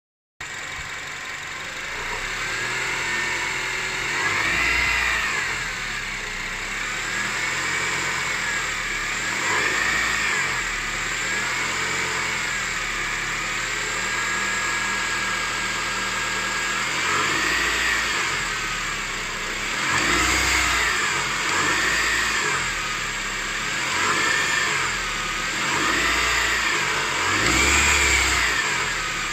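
Honda K20A4 2.0-litre inline-four engine idling and being revved up and down repeatedly, the pitch rising and falling every couple of seconds. It carries an atypical noise, most pronounced around 1500 rpm, which was traced to the alternator, power steering pump and water pump.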